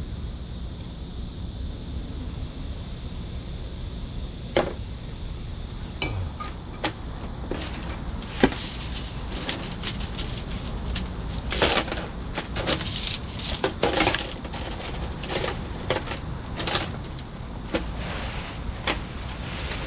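Handling sounds from a folding camp cot being put together: scattered clicks and knocks of the frame and short rustles of fabric, over a steady low rumble.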